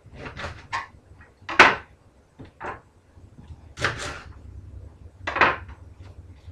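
Onion prep on a cutting board: a handful of separate short knocks and scrapes from a red onion and knife being handled and cut, the sharpest about a second and a half in.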